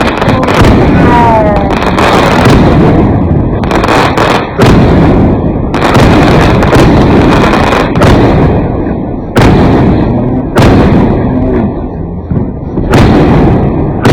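Fireworks and firecrackers going off in a dense, loud barrage: sharp bangs every one to two seconds over continuous crackling, with a short falling whistle about a second in.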